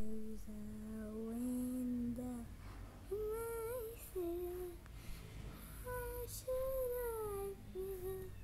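A child's voice singing a slow wordless melody in long held notes that slide up and down between pitches, with short breaks between phrases.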